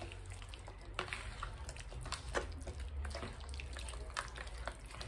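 Hands mixing chicken chunks through a wet yogurt marinade in a bowl: scattered short squelches and small clicks at irregular moments, over a low steady hum.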